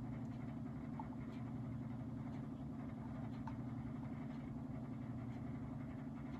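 Steady low background hum with a few faint, scattered clicks.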